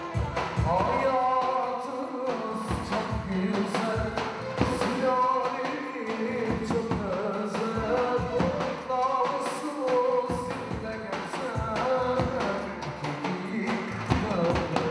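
Lively dance music: a melody line over drums and percussion with a steady beat.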